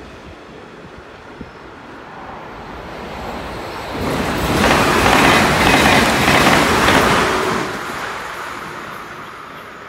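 An Arlanda Express X3 electric multiple unit passing by: its rushing wheel and air noise swells about four seconds in, stays loud for about three seconds, then fades away.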